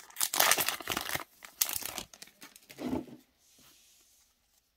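Foil Pokémon booster pack wrapper being torn open and crinkled, in quick rustling crackles over the first two seconds, then quieter as the cards are slid out.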